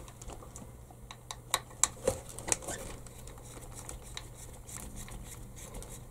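Small clicks and taps of a hex screwdriver working screws out of an RC buggy's plastic chassis plate, with a few sharper ticks between one and three seconds in, over a low steady hum.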